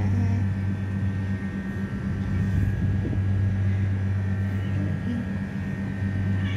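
A steady low machine hum with a faint, constant high whine above it, unchanging throughout.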